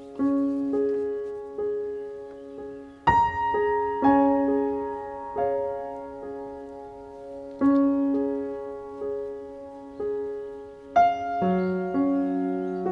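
Slow background piano music: single notes and chords struck one after another and left to ring out, with a louder chord about three seconds in and another near the end.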